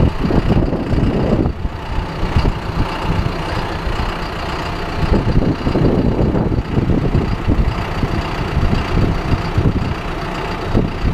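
John Deere tractor engine running steadily with a heavy low rumble.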